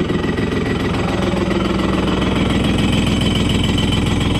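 Jet ski's two-stroke engine running roughly with a fast, even firing pulse, on very little fuel after being coaxed to start.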